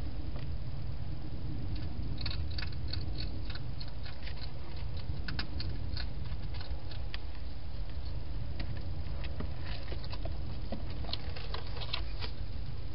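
Wild hedgehog eating at a bowl inside a plastic feeding box: irregular runs of small sharp clicks and crunches starting about two seconds in, over a steady low rumble.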